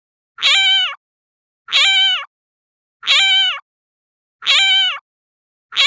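A cat's meow sound effect repeated five times at an even pace, about every 1.3 seconds; each meow is identical, short and high, holding its pitch and dropping at the end.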